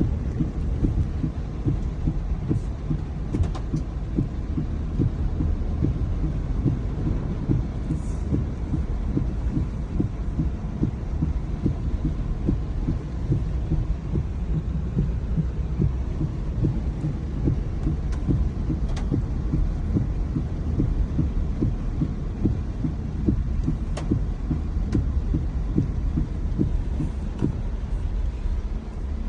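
Heavy rainstorm: a steady, dense low rumble of rain with many irregular soft thumps.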